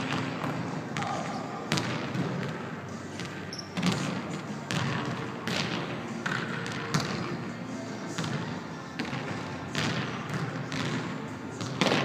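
Basketballs bouncing on a hardwood gym floor: irregular dribbles and thuds, a second or two apart, in a large hall.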